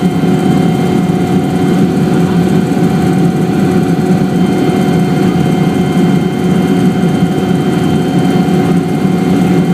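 Helicopter in flight: steady, loud engine and rotor noise with a constant whine over a low hum.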